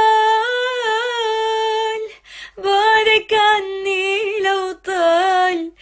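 A woman's voice singing an Arabic song solo, with no accompaniment. She holds one long note with a slight waver for about two seconds, then sings several shorter ornamented phrases with quick pitch turns.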